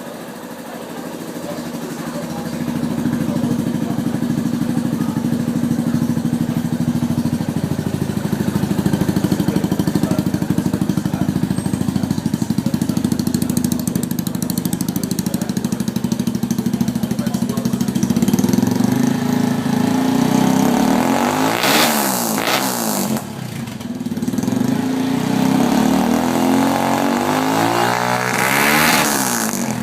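Yamaha Ténéré 250's single-cylinder four-stroke engine running through a Roncar 2 Way aftermarket exhaust tip, idling steadily and then revved up and back down twice, about two-thirds of the way in and again near the end.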